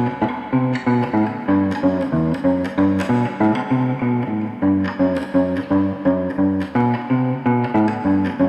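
Instrumental music of plucked guitar over a bass line, notes struck on a regular pulse of about two a second.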